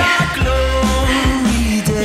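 Pop background music with a steady beat, a bass line and a singing voice.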